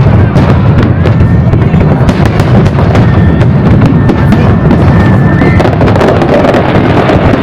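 Aerial fireworks display in a continuous loud barrage: deep overlapping booms with dense crackling throughout, and a thin high whistle through the middle.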